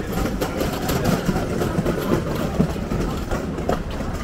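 Busy city ambience: a steady low rumble with indistinct chatter of people close by and scattered small clicks and knocks.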